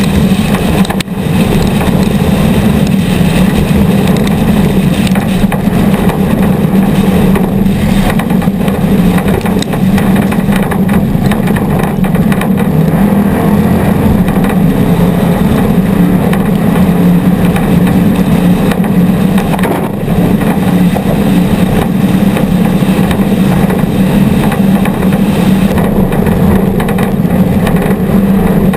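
Off-road race vehicle engines running loudly and steadily, with a brief drop about a second in.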